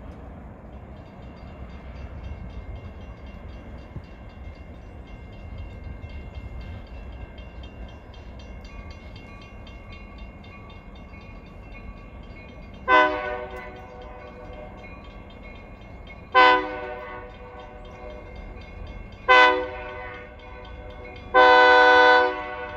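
Diesel freight locomotive's air horn sounding for the grade crossing as the train approaches: three short blasts a few seconds apart, then a longer one near the end, over the train's steady low rumble.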